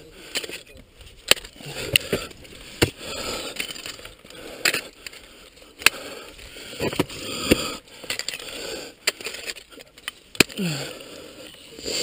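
Ice axe picks striking and biting into waterfall ice, sharp strikes about every second at an uneven pace, with scraping and crunching of ice between them.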